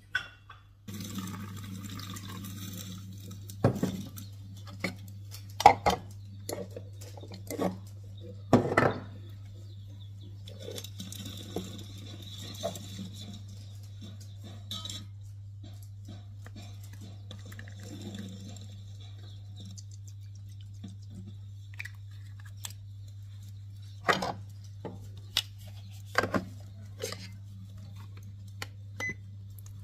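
Kitchen clatter: dishes and utensils clinking and knocking at irregular intervals, with water running briefly near the start and again in the middle. Under it is a steady low hum that starts about a second in.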